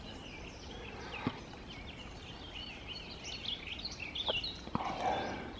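Small woodland birds chirping and twittering in quick high notes, busiest in the second half. Two sharp clicks and a short rustle come in between, over a steady outdoor background.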